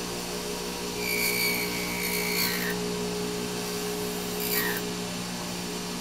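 Small lathe running with a steady hum while a hand-held blade cuts into the spinning digital iris piece. A high, thin whine with a hiss from the cut comes in about a second in and lasts under two seconds, and a brief scrape follows around four and a half seconds.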